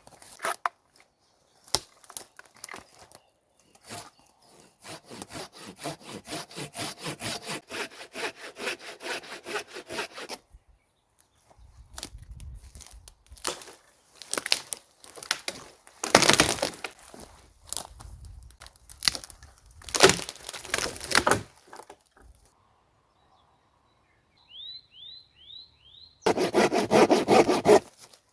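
Wood being sawn by hand in several bouts of quick, even strokes, with pauses between them; the last bout is the loudest.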